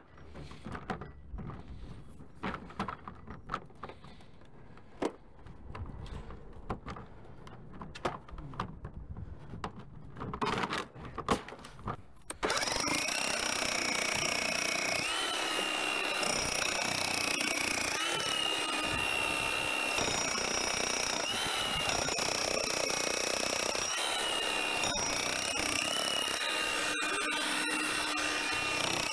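Scattered knocks and rattles of handling, then about twelve seconds in a power tool starts abruptly and runs steadily, its whining pitch shifting up and down now and then.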